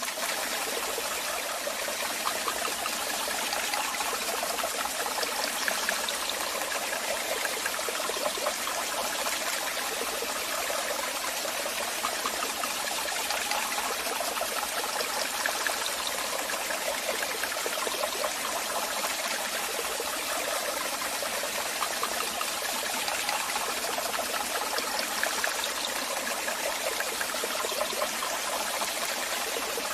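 Waterfall: water rushing and splashing steadily, with little deep rumble.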